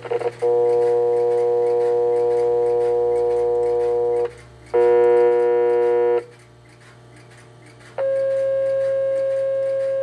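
Raw, distorted dial tone from Western Electric 101A/102A tone-generator coils, 600 Hz modulated at 120 Hz, monitored as a test lead touches their terminals. The buzzy tone sounds for about four seconds, then briefly in the middle, then for about three seconds near the end. The last stretch is a little higher and plainer in pitch.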